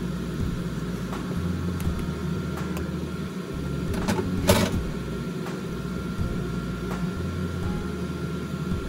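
A spatula stirring and scraping in a frying pan of simmering soft-tofu stew, with scattered light clicks and one sharp scrape about four and a half seconds in, over a steady low electrical hum.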